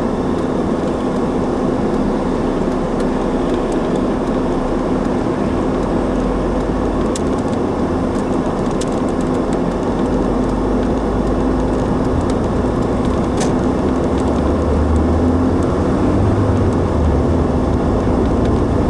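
Car driving steadily, heard from inside the cabin: a continuous hum of engine and tyre noise. The low rumble grows a little louder about two-thirds of the way through.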